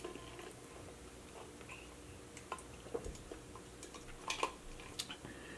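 Faint, scattered small clicks and mouth noises of eating and drinking, as a drink is sipped through a straw from a metal tumbler.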